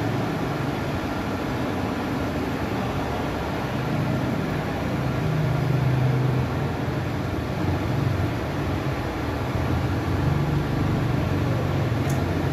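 Running machinery: a steady low rumble that swells slightly around six seconds in and again near eleven seconds.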